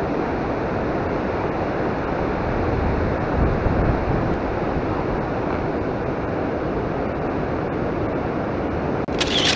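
Steady rushing noise of wind and river water, with a short crackle just before it cuts off abruptly.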